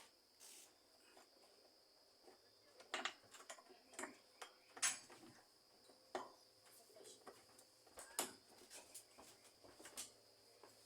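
Faint, scattered metallic clinks and taps, about half a dozen spread through, from bolts and a 13 mm wrench being worked while bolting the part in place.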